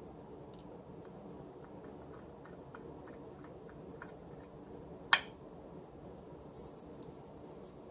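Small parts of an aluminium keyboard housing being handled during assembly: a run of faint light ticks, then one sharp click about five seconds in, followed by a brief faint rustle.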